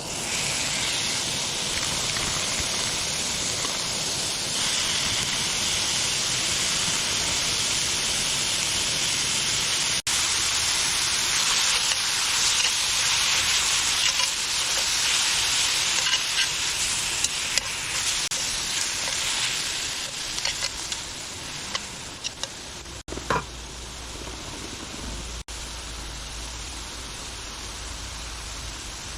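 Food sizzling as it fries in a hot pan, a dense crackling hiss that fades after about twenty seconds to a quieter steady hiss with a low hum.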